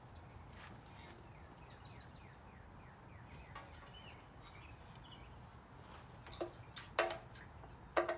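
Metal grille shroud of a Ford 120 garden tractor being set onto the tractor's front end: a few sharp metallic clanks with a short ring, the loudest two about a second apart near the end. Faint bird chirps about two to three seconds in.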